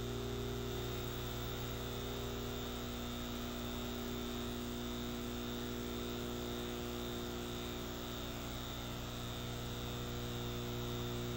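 Steady electrical mains hum with buzzing overtones over a faint hiss: the line noise of a recorded TV audio track with no programme sound on it.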